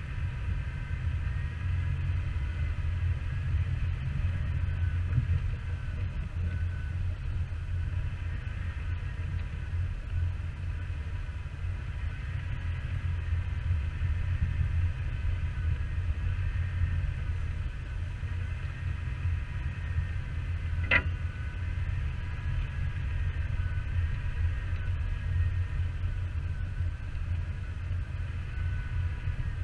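Off-road Jeep driving on a trail: a steady low rumble of engine and driveline, with a faint whine that wavers up and down. A single sharp click or knock comes about two-thirds of the way through.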